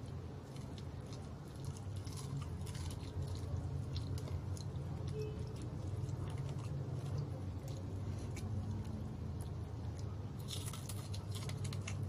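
A person biting and chewing crispy fried chicken up close, the batter crunching and crackling in many small clicks, densest near the end. A steady low hum runs underneath.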